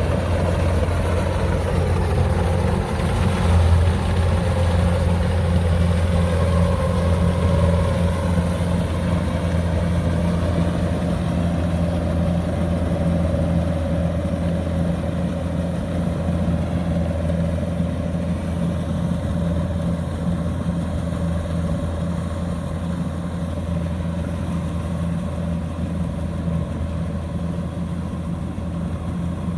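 DC-105X combine harvester's engine running steadily at constant speed, a low, even drone.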